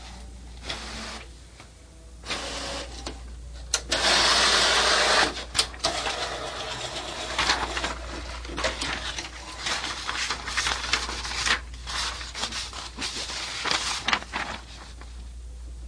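HP DesignJet T120 inkjet printer at work: its print carriage and paper feed whir and click irregularly, with a louder, steady whir about four seconds in that lasts just over a second.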